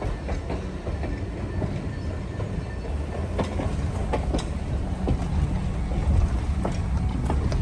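Steam train rolling past: a steady low rumble of the locomotive and cars, with irregular sharp clicks of wheels going over the rail joints.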